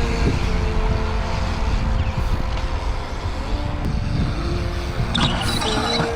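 Background music with held, stepping notes over a heavy low rumble, and a short noisy scrape about five seconds in.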